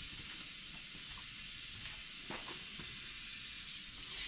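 A steady hiss with a few faint light knocks, like tools being handled.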